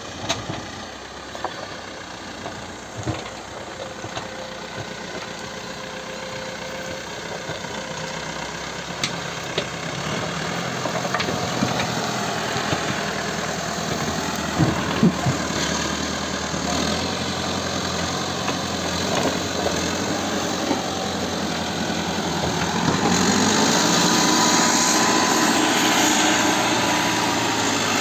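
Caterpillar 434E backhoe loader's diesel engine running steadily at work, with scattered knocks and clanks. It grows louder about 23 seconds in.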